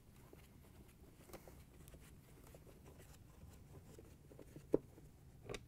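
Faint scraping and small clicks of a Phillips screwdriver backing out screws from a refrigerator's plastic ice-dispenser panel and of the panel being handled, with one sharper click near the end.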